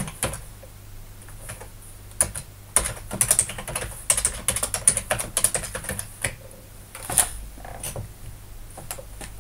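Computer keyboard being typed on in short, irregular bursts of keystrokes as a username and password are entered at a terminal prompt, with one louder single keystroke about two-thirds of the way through.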